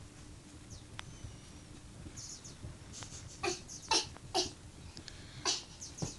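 Chihuahua playing with a cat toy: mostly quiet, with a single click about a second in, then four short, sharp noises over the last three seconds.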